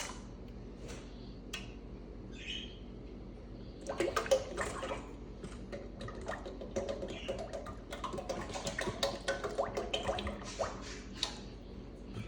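Crisco cooking oil being poured from a bottle into a pot to fill it for deep-frying: a liquid pouring and filling sound with scattered clicks and knocks, busiest in the middle.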